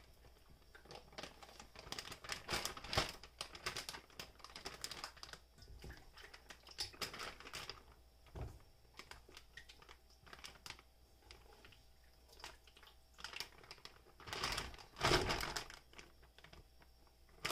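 Plastic Ziploc bag crinkling and rustling in irregular bursts as marinated pork pieces are scooped by hand from a stainless steel bowl into it, with a louder stretch of rustling a couple of seconds before the end.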